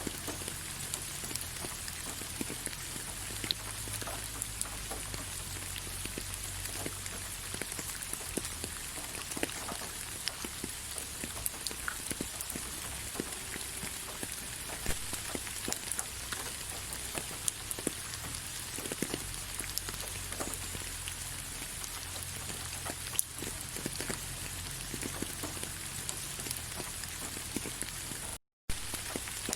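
Steady rain falling on leaves: a dense, even patter with many individual drops ticking out above it. Near the end the sound cuts out completely for a split second and then resumes.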